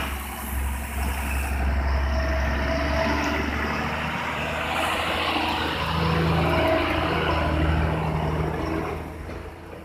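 Heavy truck's diesel engine running steadily close by, a deep drone that swells slightly a few seconds in and fades near the end.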